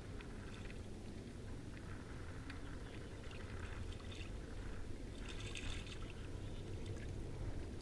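A hooked redfish (puppy drum) splashing at the water's surface beside a kayak, in short bursts about four seconds in and again around five to six seconds, over a steady low wind rumble on the microphone.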